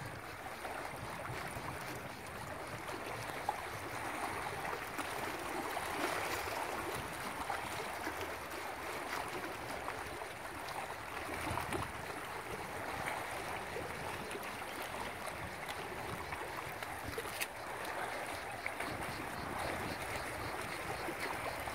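Small sea waves lapping and washing against a rocky shoreline, a steady wash of water with a couple of brief sharp clicks.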